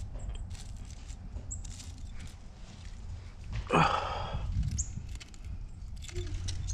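Low rumble of wind on the microphone, with scattered small clicks and rustles of a hand working among rocks and dry leaves, and one brief louder sound about four seconds in.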